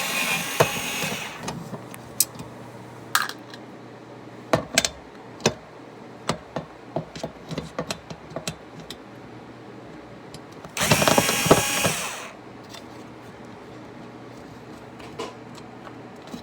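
A power drill/driver running in two short bursts of about a second each, one at the start and one about eleven seconds in, driving out screws; between them come scattered clicks and knocks of parts being handled.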